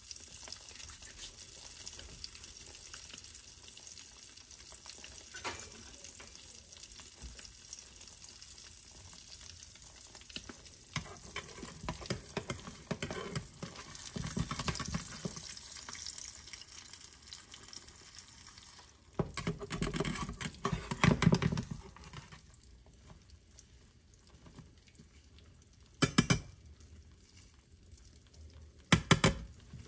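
Food sizzling in a pan on the stove, with utensils clattering against the pan. About two-thirds through there is a louder burst of knocking and clattering, and near the end two sharp clicks.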